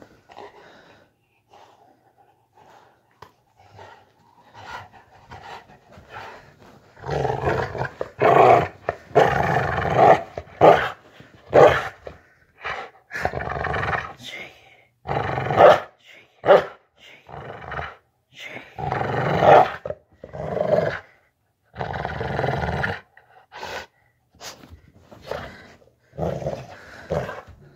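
Large bully-breed dog growling while tugging on a rope toy. The first several seconds are quieter; then, from about seven seconds in, comes a string of loud growls, each a second or two long.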